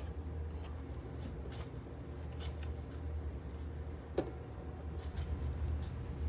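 A silicone spatula stirring a thick, sticky paste in a pan, making soft wet squelches and a few small taps against the pan, over a steady low hum.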